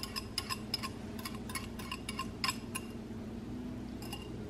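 Quick, light clinks of glassware, each with a short ring, about three or four a second, as beaten eggs are poured from a small glass dish into a glass mixing bowl. The clinking stops about three seconds in, with one more clink near the end.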